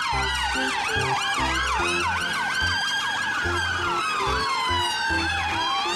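Police-style sirens wailing and yelping over one another, quick repeated up-and-down sweeps layered with a slower rise and fall, over low stepping notes beneath.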